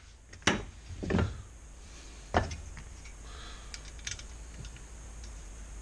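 Metal parts of a dismantled Honda GX35 four-stroke engine handled on a workbench: three knocks and thuds in the first two and a half seconds, the middle one the heaviest, then a few light clicks and rattles.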